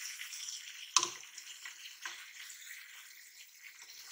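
Chicken karahi with tomatoes sizzling in a non-stick karahi as a spatula stirs it, a steady high hiss. The spatula knocks sharply against the pan about a second in and lighter about two seconds in.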